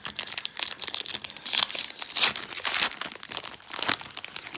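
A baseball card pack wrapper being torn open and crumpled, a dense crinkling crackle that is loudest midway through.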